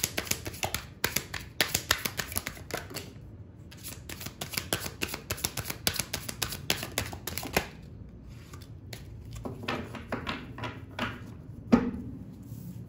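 A deck of tarot cards being shuffled by hand: rapid, crisp clicking and flicking of cards against each other, with a short pause about three seconds in. After about eight seconds the clicks thin out to a few separate card sounds, with one sharper, louder knock near the end.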